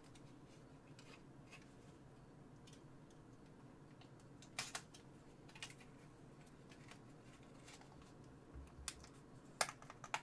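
Plastic blister pack of a RAM stick being handled and opened: scattered faint clicks and crackles, with a few sharper clusters about four and a half seconds in and near the end.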